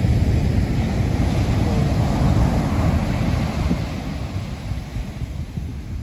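Ocean surf breaking on a sandy beach, with wind buffeting the microphone in a heavy low rumble. Louder over the first half, easing off toward the end.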